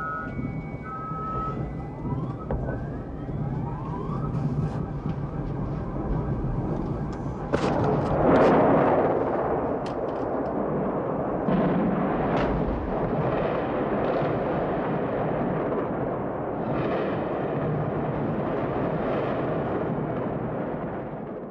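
Night bombardment of a city heard from afar: a continuous rumble of distant explosions and gunfire, with sharper blasts about eight and twelve seconds in. A steady siren tone sounds during the first second or so.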